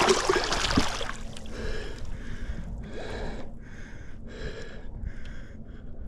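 Water splashing as the big flathead catfish is let go and kicks away, loudest in the first second. This is followed by a string of short, evenly spaced breaths, the fisherman breathing hard after the fight.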